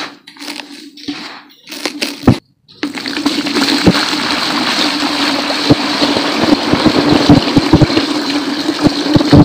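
Dry brown dirt pressed and crumbled by hand in a plastic tub, with short crunchy knocks and rustles. After a brief break, about three seconds in, a thick stream of water pours steadily onto the dirt, splashing and bubbling as the tub fills.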